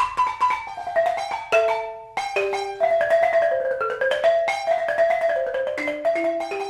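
Background music: a quick melody of struck notes that each ring briefly and fade, in the manner of a marimba or xylophone.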